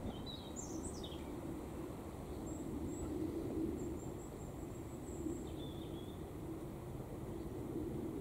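Outdoor ambience with a steady low rumble. Small birds give a few short high chirps in the first second, then fainter thin calls now and then.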